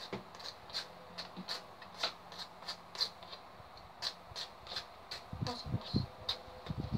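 Light, regular clicking and scraping of a utensil poking baking soda down through a small plastic funnel into a plastic bottle, about three clicks a second.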